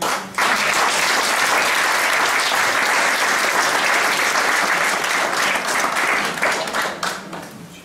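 Audience applauding. It starts abruptly just after the beginning, holds steady for about six seconds, then thins out and fades near the end.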